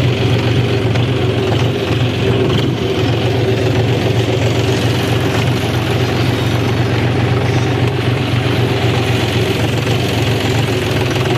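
John Deere tractor's diesel engine running steadily, heard close from the driver's seat, with a strong low hum.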